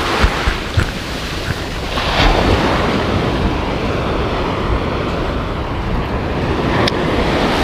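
Surf washing onto a sand beach, with wind buffeting the microphone. A few light knocks sound near the start.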